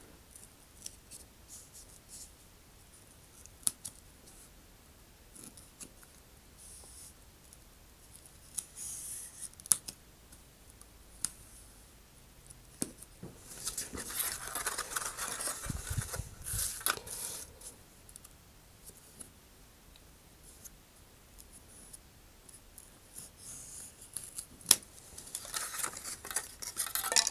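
Hobby knife cutting through the tick marks of a balsa wood sheet: intermittent short scratchy cuts and clicks of the blade, with longer spells of cutting about halfway through and again near the end.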